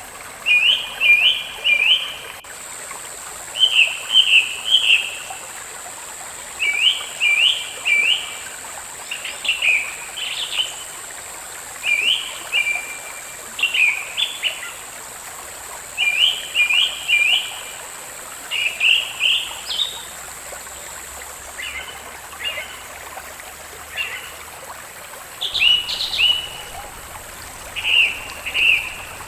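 A songbird singing short phrases of three or four quick, bright chirps, repeated every couple of seconds, over a soft steady trickle of water.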